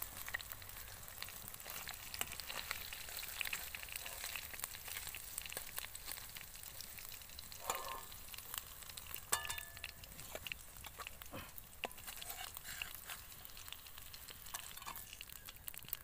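Hot mustard oil sizzling steadily around fried bata fish in a metal kadai taken off the fire, with scrapes and a few sharp clinks of a metal spatula against the pan as the fish are lifted out.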